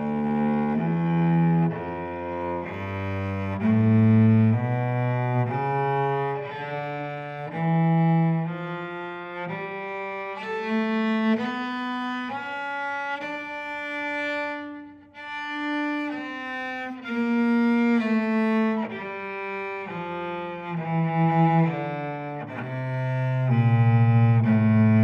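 Solo cello played with the bow: a scale climbing note by note to a held top note about halfway through, then stepping back down, roughly one note a second.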